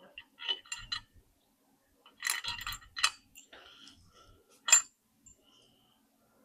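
Metal bolts and parts being handled, giving a scattered series of light metallic clinks and clicks, the sharpest about three quarters of the way through.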